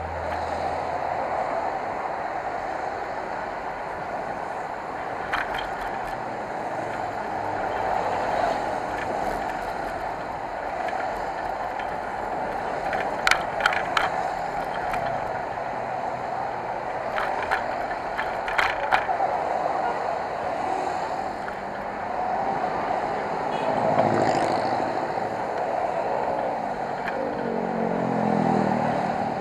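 Riding noise from a motorcycle on the move: steady wind and road rush, with a few sharp rattles midway and the engine note rising and falling around three quarters of the way in and again near the end.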